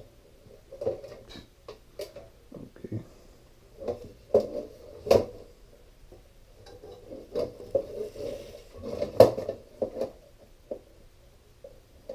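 Hands working on a sheet-metal deer feeder motor housing and its wiring: scattered taps, knocks and rubbing, with the sharpest knocks about five and nine seconds in.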